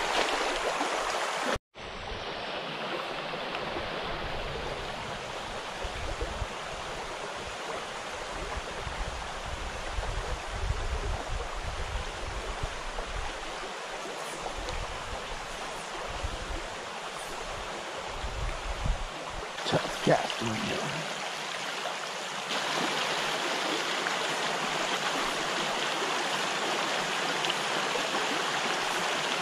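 Shallow creek running over rocky riffles: a steady rush of flowing water, which grows louder about three-quarters of the way through.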